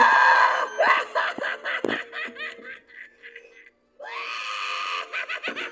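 Animatronic clown's recorded maniacal laugh, a rapid run of repeated 'ha-ha' pulses after a loud harsh burst at the very start. It breaks off briefly just before the four-second mark and starts again.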